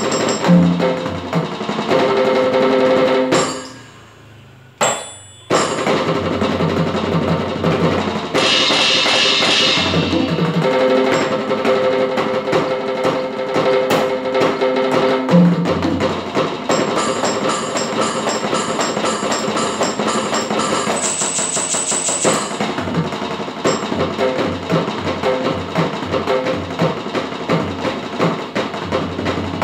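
Fast, dense drumming on an electronic drum kit: rapid snare and tom hits, cymbals and double-pedal bass drum, heard as the kit's sound module output. The playing stops almost completely for about two seconds after the first three seconds, with one short hit in the gap, then carries on.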